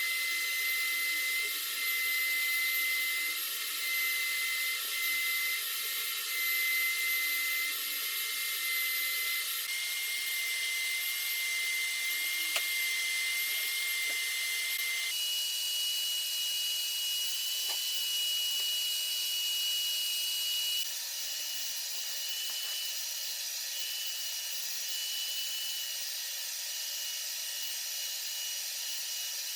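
Spray-finishing equipment running: a steady motor whine over a hiss, with the sound shifting abruptly at cuts about 10, 15 and 21 seconds in.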